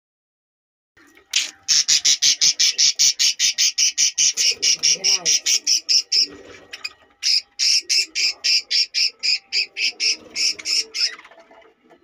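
Young budgerigar giving rapid, harsh squawks, about eight a second, starting about a second in. The squawks come in two long runs with a short break in the middle.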